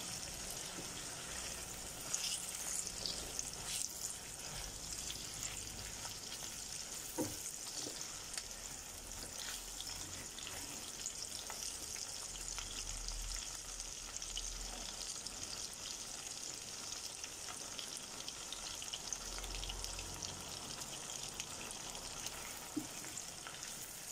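Bone-in chicken and chopped onions frying on high heat in a non-stick pan: a steady sizzle, broken a few times by short taps and scrapes of a spatula against the pan.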